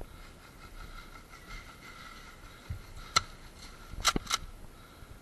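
Airsoft gunfire: one sharp crack about three seconds in, then two more close together about a second later.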